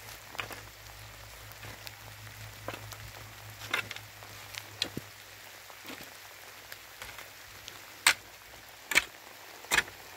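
A digging tool striking stony soil: light scattered ticks and knocks at first, then three hard strikes about a second apart near the end.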